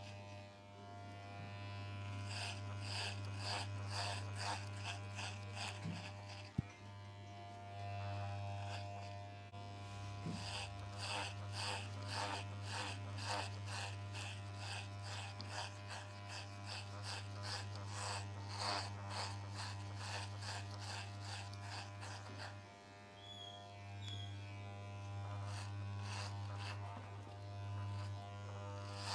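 Electric hair clipper buzzing steadily as it cuts hair, with a rapid crisp crackle over the buzz. The buzz dips briefly a couple of times, and there is one sharp click about six and a half seconds in.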